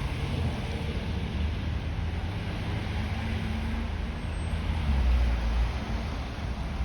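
Steady low rumble of city road traffic, swelling briefly about five seconds in.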